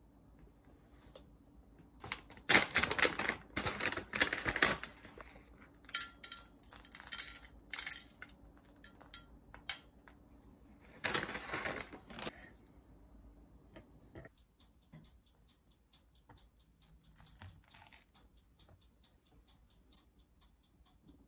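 Packaging rustling and crinkling in several loud bursts as granola and nuts are shaken out and sprinkled onto a plate, with small clicks of pieces landing. Later there is a faint, even ticking.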